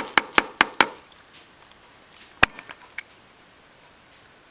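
Sharp clicks of small magnets knocking together and against a hard surface as a cat bats at them: a quick run of about five clicks in the first second, then one loud click about two and a half seconds in, followed by three fainter ones.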